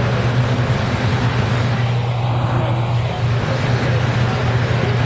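Transit bus engine running close by as the bus moves slowly past, a steady low drone.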